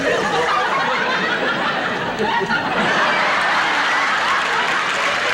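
Studio audience laughing, the laughter swelling into applause about three seconds in.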